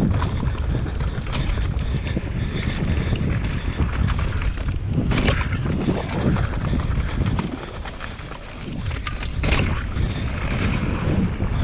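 Wind buffeting an action camera's microphone during a downhill mountain bike run, a loud steady rumble, with tyre noise and the clicks and clacks of the bike rattling over rough ground. The wind eases briefly about two-thirds of the way through.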